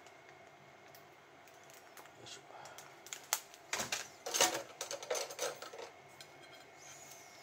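Small clicks and knocks of a plastic squeeze bottle and a china plate being handled, clustering a little before halfway with one louder rattle, after a few seconds of quiet.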